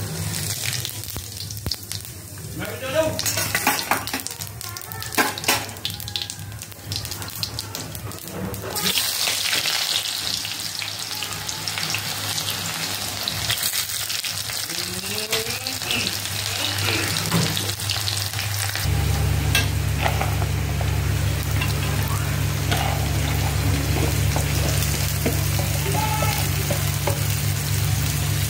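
Hot oil sizzling in a steel kadai as tempering seeds and sliced onions fry, with a spatula stirring. A few sharp clicks and knocks come a few seconds in, the sizzle grows louder about nine seconds in, and a steady low hum joins it about two-thirds of the way through.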